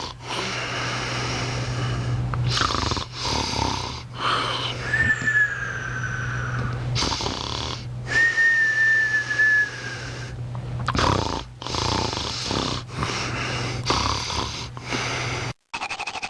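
A person snoring: repeated rasping breaths, with a thin whistle on two of the breaths, each held for about a second and a half and sliding slightly down. Shortly before the end the snoring cuts off and a different buzzing sound starts.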